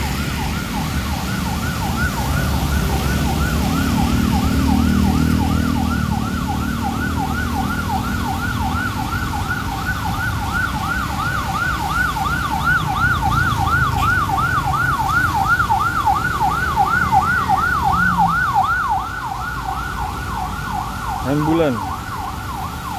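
Ambulance siren in a fast yelp, its pitch sweeping up and down about three times a second without a break, over the rumble of passing traffic that swells from about three to seven seconds in.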